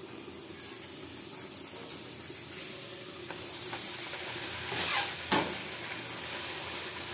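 A puri sizzling as it deep-fries in hot oil in a steel kadhai while a wire strainer presses it down to puff. The sizzle is steady, with two short, louder scrapes about five seconds in.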